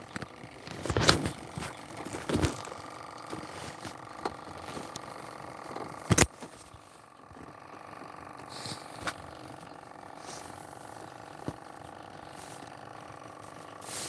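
Handling noise on a phone microphone: rubbing and scraping with a few knocks, the sharpest about six seconds in, over a faint steady hum.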